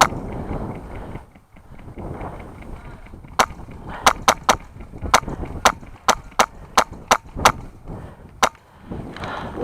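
Airsoft rifle firing single shots as sharp cracks. One shot comes at the start, then after a pause of about three seconds a string of about a dozen irregularly spaced shots follows, roughly two a second.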